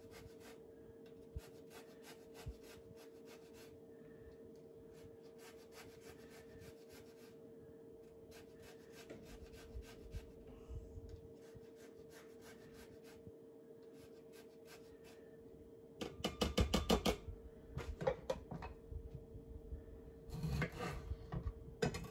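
A lemon being zested on a rasp grater, in short runs of quick scraping strokes over a faint steady hum. Near the end come louder knocks and scrapes on a wooden cutting board.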